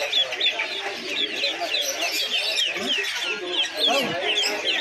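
Ducklings peeping nonstop in a cage, many short high peeps overlapping in quick succession, with voices in the background.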